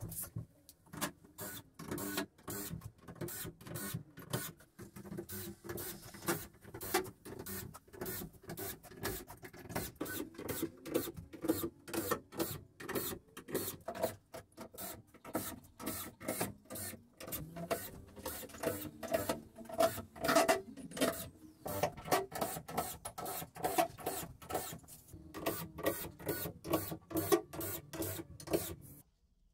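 DeWalt cordless drill-driver driving screws one after another through a fibreboard sheet into a wooden frame, its motor running in many short bursts.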